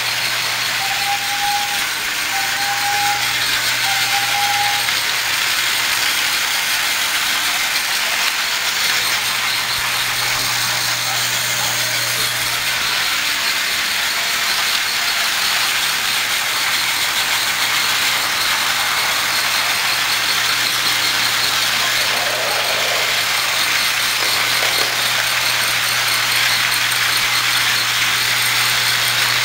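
Several battery-operated TrackMaster toy trains running on plastic track: a steady whir of their small motors and rattling of wheels over the track. Three short high beeps come between about one and five seconds in.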